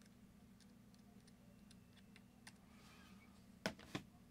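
Faint steady hum with a few light ticks from handling, then two sharp knocks about a third of a second apart, near the end, as tools are set down on the work mat.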